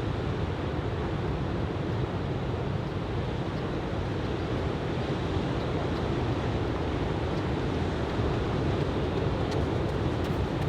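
Ocean surf from a typhoon swell breaking on a sandy beach: a steady, low wash with wind on the microphone.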